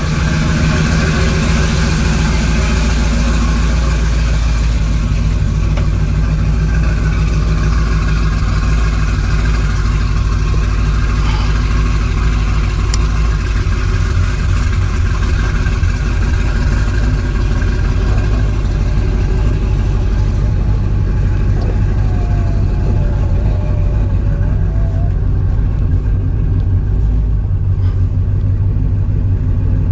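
GM LS-series V8, freshly fitted with a DoD (Displacement on Demand) delete kit, running steadily at idle. The sound turns duller about two-thirds of the way through.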